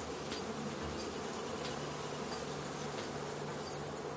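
Insects: a high, fast-pulsing cricket trill over a low buzz of honeybees that comes and goes.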